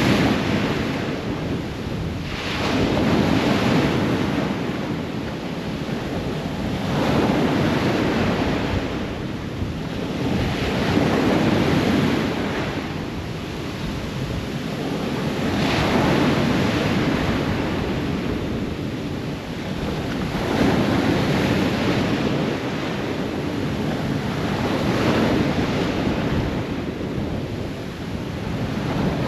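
Ocean waves breaking on the shore and washing in, swelling and easing about every four to five seconds.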